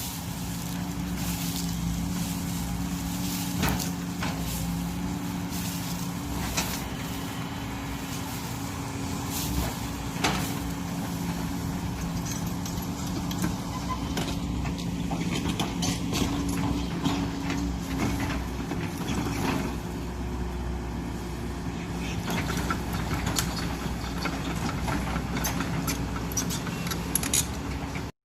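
Hydraulic excavator's diesel engine running steadily, with frequent knocks and clanks.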